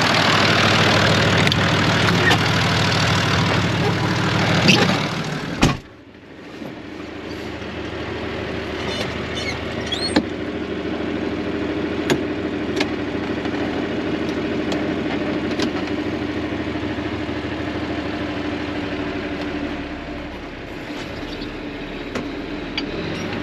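John Deere tractor's diesel engine running, heard loud and close beside the engine compartment. About six seconds in, a cab door slams and the engine turns muffled and steady, with a few clicks and clunks from the gear and range levers as it is put in gear and driven.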